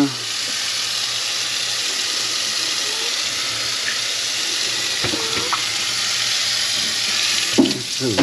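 Kitchen tap running steadily into the sink, the water going down a drain just cleared of a grease and food clog.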